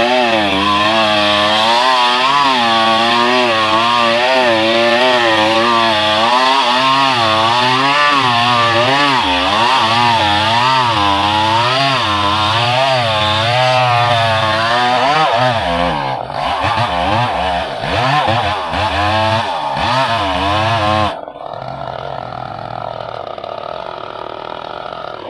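Chainsaw running at high revs and cutting wood, its engine pitch wavering up and down about once a second under load. About sixteen seconds in, the engine note turns uneven, and about twenty-one seconds in it drops suddenly to a much quieter, steadier running.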